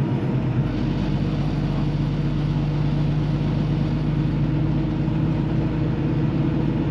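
Semi-truck diesel engine running steadily at low speed.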